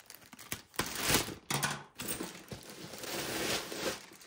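Clear plastic bag crinkling and rustling as a backpack is pulled out of it: two short bursts, then a longer stretch of rustling.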